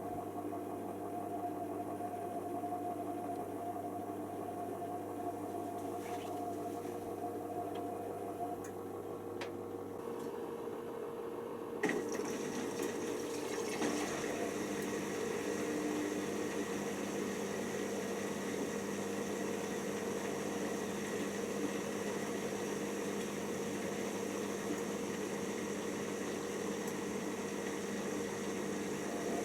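Hoover Nextra HNWL7146 washer dryer running in its sensor drying cycle: a steady machine hum with a low drone. About twelve seconds in there is a click, after which the machine runs louder and hissier, with a different hum.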